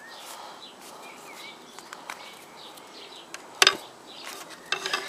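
Birds chirping faintly over outdoor background noise while a fabric stab-proof panel is handled. About three and a half seconds in there is one sharp knock, the loudest sound, and a few smaller clicks follow near the end.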